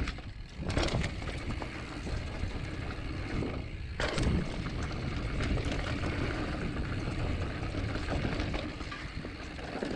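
Mountain bike riding fast down a dirt trail, heard from a camera on the bike or rider: a steady rumble of wind and tyres on dirt, with a few sharper clatters as the bike hits bumps.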